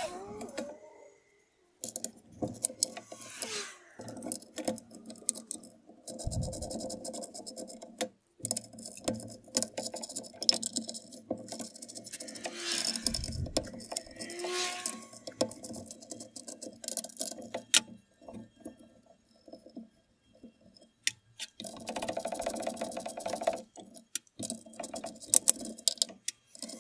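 Hand ratchet wrench clicking in spells as bolts are undone, with short pauses and a few metallic knocks and clanks from handling tools and parts.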